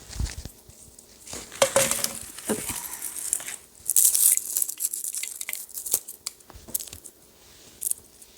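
Dried catnip crackling and rustling as the leaves are stripped off their brittle stems by hand, in irregular bursts of crinkly crunching.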